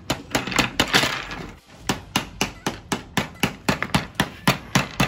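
Plastic toy hammer from a Thames & Kosmos Tools & Building Set tapping plastic pegs into a toy workbench: a quick, steady run of knocks, about four a second, with a short pause about a second and a half in.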